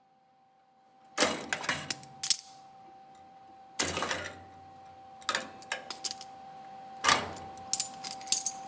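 Metallic clinking and clattering in four short bursts, as of hand tools or metal parts being picked up and set down, over a steady hum.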